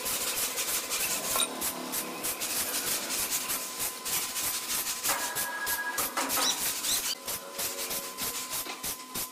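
A sawmill saw rasping through a large log, a dense scraping noise full of rapid irregular clicks, with a faint steady high whine behind it.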